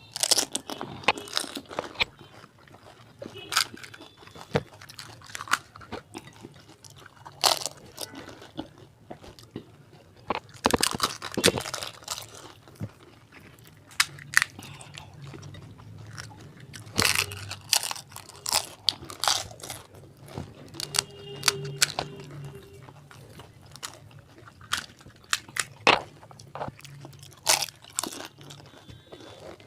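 Crisp fuchka (pani puri) shells being bitten and chewed: irregular crunching and cracking with chewing in between.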